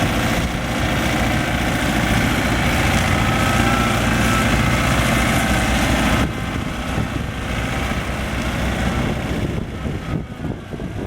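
New Holland TC40D tractor's diesel engine running steadily, turning abruptly quieter about six seconds in.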